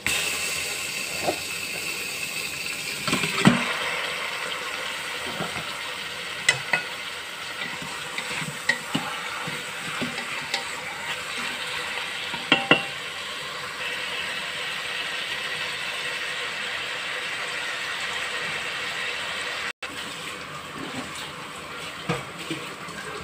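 Raw pork and chicken sizzling in the hot stainless-steel inner pot of an electric multi-cooker, the hiss starting suddenly as the meat goes in. A wooden spatula knocks and scrapes against the pot now and then as the meat is stirred.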